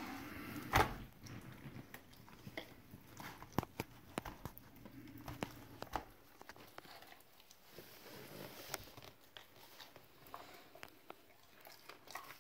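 A Siberian husky eating a whole rotisserie chicken from a plastic tray: irregular biting and chewing with scattered small clicks, and one louder knock just under a second in.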